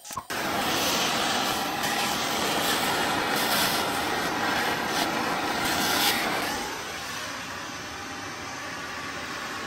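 Handheld gas torch burning with a steady hiss, heating the wheel bearing housing so the press-fit outer race expands and can be driven out. The hiss cuts off about six and a half seconds in, leaving a quieter steady background.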